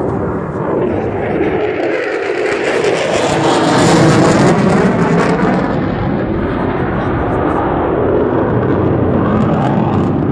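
F-16 fighter jet's engine noise as it flies past, swelling to its loudest about four seconds in and then fading as it moves away.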